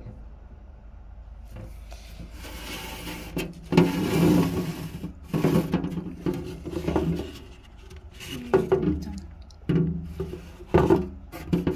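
Paper-pulp egg carton and clear plastic box being handled: quiet for the first few seconds, then a run of rubbing and scraping bursts about once a second.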